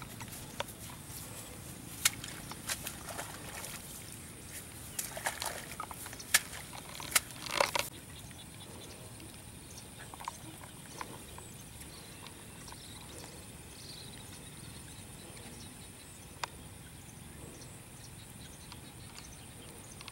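Outdoor ambience over a waterlogged grassy field: a steady high-pitched hum, with scattered sharp clicks and knocks during the first eight seconds and one more later.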